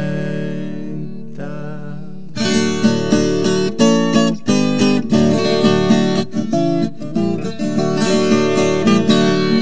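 Instrumental ending of a sertanejo song on acoustic guitars: a held chord rings for about two seconds, then the guitars strum and pick a closing phrase.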